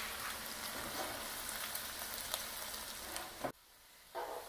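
Broccoli rabe sizzling in hot olive oil with garlic in a sauté pan: a steady crackling fry that cuts off suddenly about three and a half seconds in. Tongs then briefly move the greens in the pan near the end.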